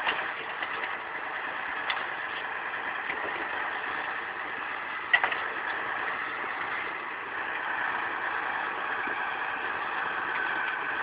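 KAMAZ timber truck's diesel engine running steadily, with one sharp knock about five seconds in.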